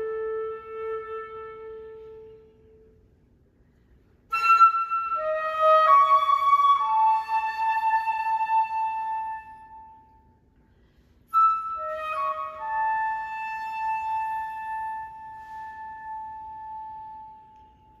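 Solo concert flute playing slow, unaccompanied phrases: a held note dies away, then after a pause come two short figures that each step downward and settle onto a long held note, with a pause between them.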